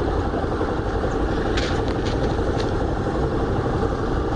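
Yamaha Factor motorcycle's single-cylinder engine idling steadily while stopped, with a few brief scratchy sounds about halfway through.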